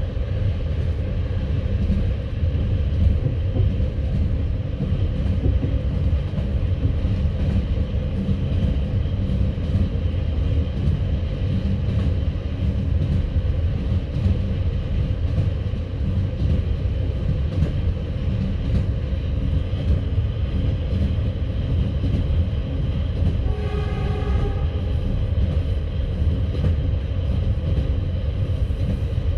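Passenger train running along the line, heard from inside the carriage: a steady low rumble of wheels on rail. About three-quarters of the way through, a brief horn sounds for a second or two.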